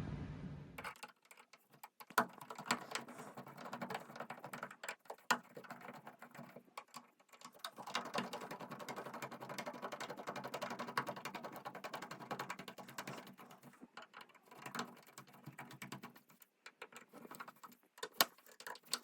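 A newly wired wall light switch being pushed back into its electrical box and fastened: faint scattered clicks and scrapes, with a stretch of fine rapid ticking in the middle.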